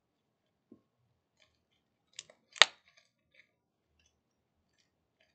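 Homemade slime being stretched and kneaded by hand: a few faint sticky clicks, with one sharp pop about two and a half seconds in.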